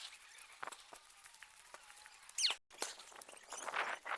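Quiet background with scattered faint clicks and a short high chirp about two and a half seconds in; no cannon blast.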